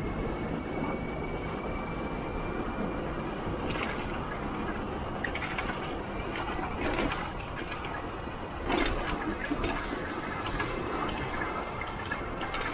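Steady city street-traffic and road noise, with a few short sharp sounds through the middle.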